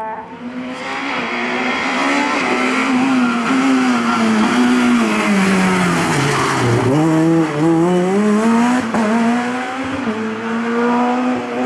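Rally car engines at high revs, with tyre squeal. About two-thirds of the way through the revs drop sharply as a Peugeot 207 S2000 slides through a bend, then climb again as it accelerates away.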